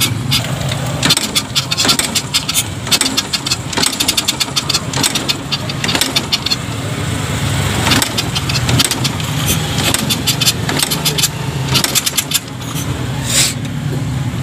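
STX125 motorcycle being kick-started over and over, the engine turning over with clattering knocks of the kick lever and not catching readily: it is hard to start.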